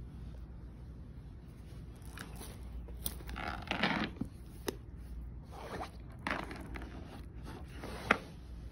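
Unboxing packaging being handled, a few short rustling, scraping strokes of paper or card, with a sharp click near the end.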